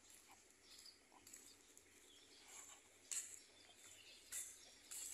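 Faint outdoor ambience picked up by a smartphone's microphone, with a few short, high bird chirps, the clearest in the second half.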